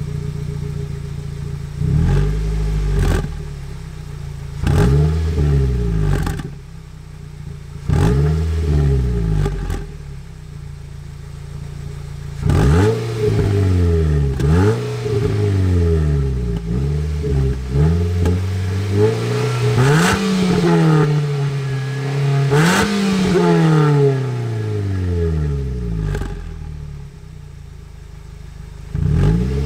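Nissan Note Nismo S's 1.6-litre four-cylinder engine heard at the tailpipe of its Nismo titanium muffler, idling and revved in a series of quick throttle blips. Two longer, higher revs come about twenty seconds in before it settles back to idle. The exhaust note is light and high-pitched.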